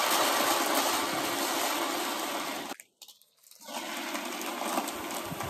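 Water from a pumped garden hose rushing into a plastic bucket. It fades gradually, cuts out for about a second, then runs again more quietly.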